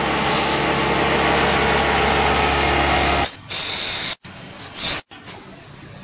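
Automatic bar feeder and rotor-forming lathe running: a steady, loud machine hum with a hiss that drops suddenly a little over three seconds in to quieter machining noise broken by two brief gaps.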